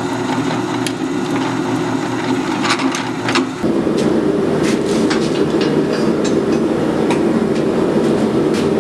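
Drill press motor running steadily while the bit drills a hole through steel flat stock, with scattered small clicks; the tone of the machine shifts about a third of the way in.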